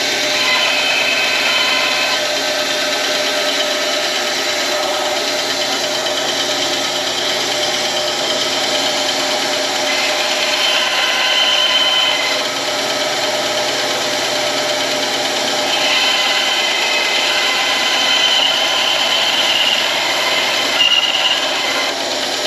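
A power tool running steadily while working wood, its whine wavering slightly in pitch as it bears into the piece.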